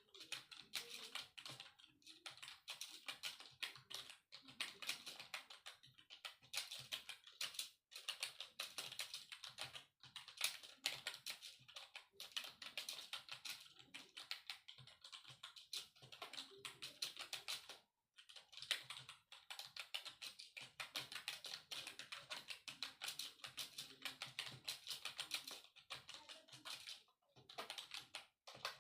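Fast, continuous typing on a computer keyboard, many keystrokes a second with a few short pauses, during a timed typing-speed practice.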